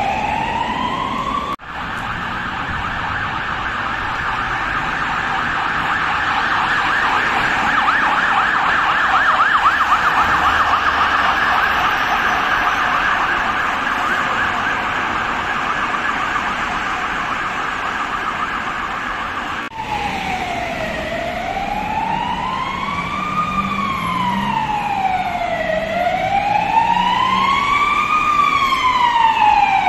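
Emergency sirens in three stretches. First, a second and a half of a wailing siren that breaks off abruptly. Then a blood-transport van's siren on a rapid warbling yelp for about eighteen seconds, breaking off just as suddenly, followed by a police car's siren on a slow wail that rises and falls about every four seconds and grows slightly louder toward the end.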